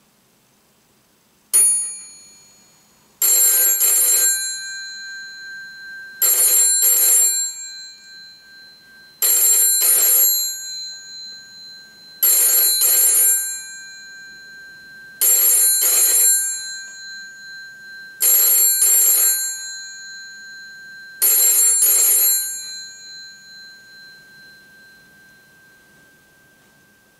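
Bell of a GPO 746 rotary-dial telephone ringing in the British double-ring cadence: a single ding about a second and a half in, then seven pairs of rings, one pair every three seconds. After the last pair the bell rings on and fades away.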